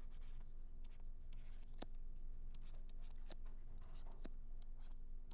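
Stylus tapping and scratching on a tablet screen while drawing, a string of small irregular clicks over a low steady hum.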